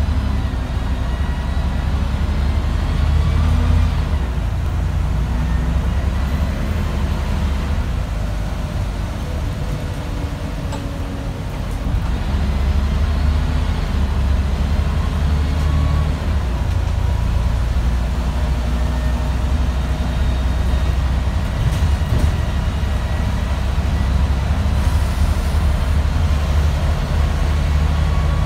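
Scania bus engine driving the bus along, heard from inside the passenger saloon as a heavy low drone with road noise. It eases off for a couple of seconds around the middle, then pulls harder again and stays loud.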